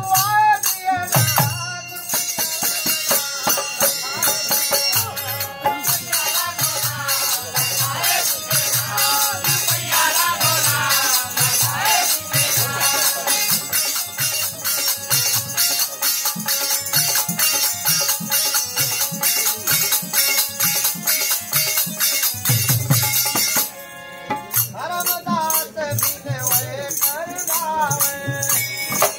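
Live Hindu devotional bhajan: a dholak barrel drum beats a steady rhythm under continuous metallic jingling percussion while voices sing. The music drops off briefly about 24 seconds in, then starts up again.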